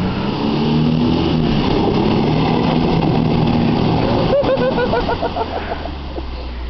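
Jeep Wrangler engine revving hard under load as it churns through a mud pit, wheels spinning and slinging mud. There is a single sharp knock a little past the middle.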